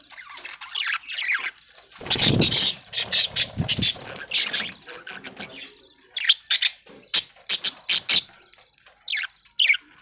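A flock of budgerigars chirping and chattering in short, sharp calls that come in quick clusters, with a louder noisy burst about two seconds in.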